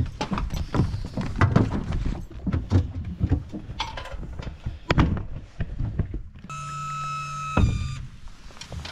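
Irregular knocks and thuds of someone moving about and handling gear in an inflatable dinghy. Near the end comes a steady pitched tone lasting about a second, which cuts off abruptly.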